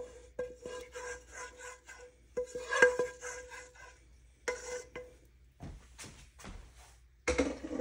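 Wooden spoon scraping and tapping inside a skillet, scooping out browned sausage and black bean mixture. Several taps leave the pan ringing briefly.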